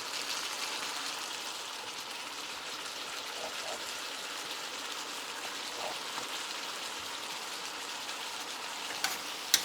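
Chicken fajita (chicken strips, sweet peppers and onions) sizzling steadily in oil in a frying pan, with two sharp clicks near the end.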